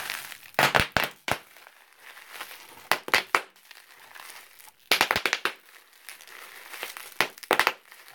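Bubble wrap twisted and wrung in both hands, its air bubbles popping in four quick bursts of several sharp pops each, about two seconds apart, with crinkling of the plastic between.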